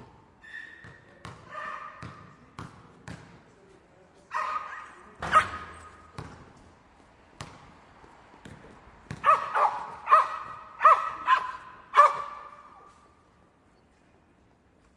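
A dog barking and yipping in short sharp calls, the loudest coming in a quick run of about six barks near the end, with scattered sharp knocks like a basketball bouncing on a hard floor between them.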